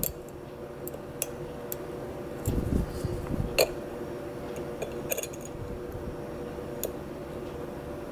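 Scattered small metallic clicks and ticks of a dimple pick working the pins inside a Burg Wächter 450/50 11-pin dimple padlock, at irregular intervals, with a couple of dull knocks a little past two seconds in, over a faint steady hum.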